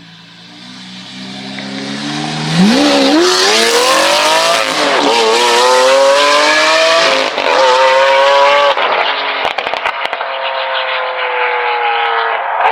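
A supercar engine accelerating hard: a low rumble that about two and a half seconds in jumps to full throttle, climbing in pitch through three upshifts, each a quick drop then a climb again, then settling to a steady, slowly falling note as the car pulls away.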